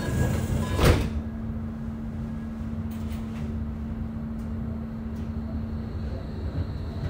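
Inside a Bombardier Flexity tram: the running noise gives way to a loud thump about a second in as the tram comes to a stand. It then stands with a steady low hum from its onboard equipment, and there are a few short clicks of door or other fittings.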